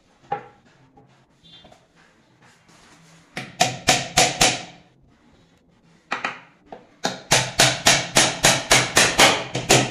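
Hammer blows on plywood as the top panel of a plywood shelf is nailed down onto its dividers: one knock near the start, a quick run of about six blows around three and a half seconds in, then a steady run of rapid blows, about four a second, from about seven seconds in.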